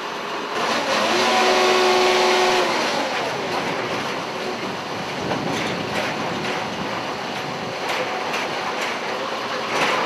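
Heavy engine noise of a passing vehicle or aircraft. A pitched whine swells about a second in, holds, then drops in pitch and fades a little after two and a half seconds, and several sharp knocks follow in the second half.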